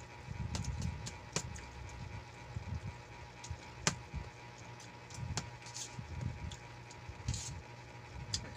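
Close-up eating sounds: noodles being chewed with the mouth full, with a metal fork clicking and scraping against an aluminium tray a few times, the sharpest click near the middle. A steady low hum runs underneath.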